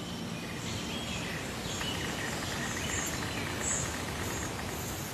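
Outdoor nature ambience: a steady hiss of background noise with scattered short, high-pitched chirps.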